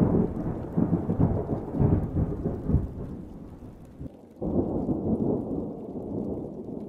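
Rolling thunder, with a second peal cracking in suddenly about four and a half seconds in and then dying away.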